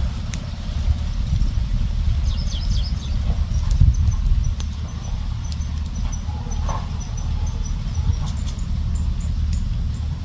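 Low wind rumble on the microphone, with a small stick fire crackling now and then. From about two seconds in, a run of short, high chirps repeats a few times a second.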